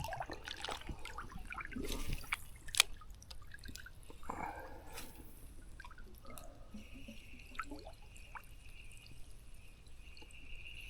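Faint water sounds: drips and small splashes close to the microphone, with scattered light clicks. A faint steady high tone joins about seven seconds in.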